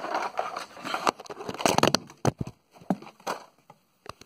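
Hands rubbing and pressing a foam packaging insert: crackling and scraping for about the first two seconds, then a few sharp clicks.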